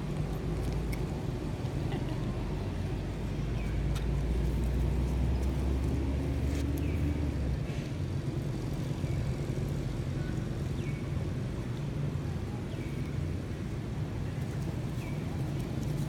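Low steady rumble of a motor vehicle's engine, heavier in the first half and easing off about halfway through. Short high chirps sound every second or two over it.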